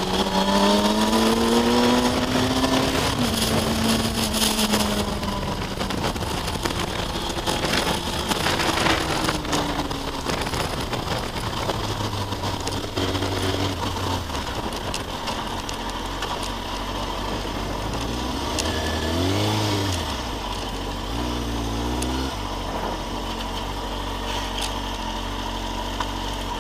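2004 Kawasaki ZX-6R 636's inline-four engine under way, rising in pitch as it accelerates over the first few seconds, then easing off. Near the end it gives a couple of short rises and falls in revs. Steady wind and road noise runs underneath.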